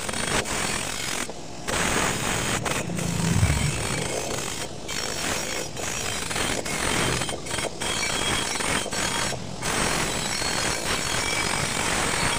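Bench grinder's wire wheel brush scouring a bent steel exhaust pipe held against it, a continuous harsh grinding as the pipe's surface is cleaned down to bare metal.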